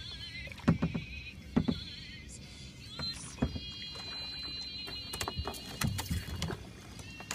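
Kayak paddle and hull noises: a handful of separate knocks and light splashes as the boat is eased along. Faint music with a wavering singing voice plays underneath.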